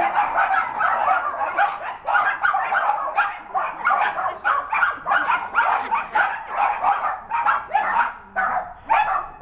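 A dog barking rapidly and without a break, about three to four sharp barks a second.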